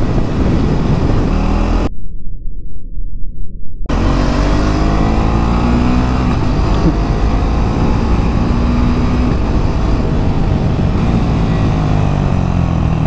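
KTM Duke 390 Gen 3 single-cylinder motorcycle engine running hard at highway speed under wind rush, its note rising and falling slowly. About two seconds in, the sound goes muffled for about two seconds.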